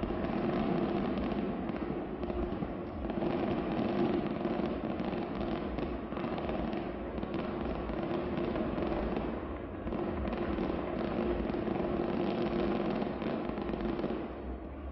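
Fireworks display heard from a distance, many shells bursting and crackling without a break so that the bangs blend into one continuous rumble.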